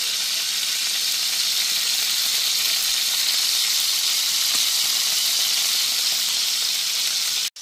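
Chicken thighs frying in hot grease in a stainless steel skillet: a loud, steady sizzle that cuts off abruptly near the end.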